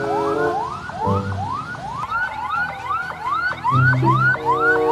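Ambulance siren in a fast repeating rising yelp, about three sweeps a second, over background music with a low pulsing beat.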